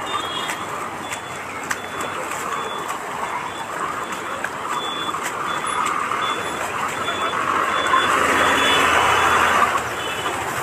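Floodwater rushing across a street, louder for about two seconds near the end. Through it a short, high electronic beep repeats steadily.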